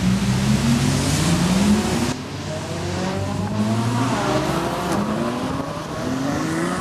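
Ferrari sports cars accelerating past one after another on a wet road, several engine notes climbing in pitch as they pull away. A hiss of tyres on standing water is strongest in the first two seconds, then drops away suddenly.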